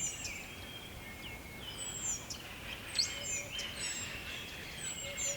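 Several songbirds chirping and singing at once: short chirps, whistled notes and quick downward-sweeping calls overlapping, over a steady outdoor background hiss.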